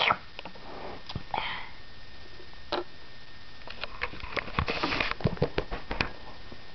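Handling noise: small plastic toys and playset pieces being picked up and moved, with scattered light clicks and taps and brief rustling close to the microphone, busiest in the second half.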